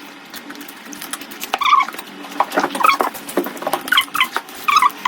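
An animal's short, high-pitched whining calls, repeated several times, with scattered light clicks and taps.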